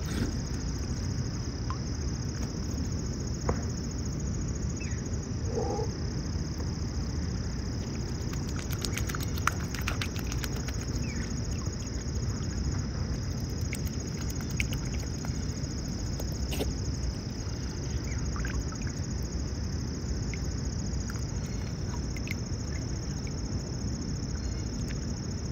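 Outdoor lake ambience with a steady low rumble and a constant high-pitched drone. A scattering of faint clicks and water drips comes through as mute swans feed with their heads underwater.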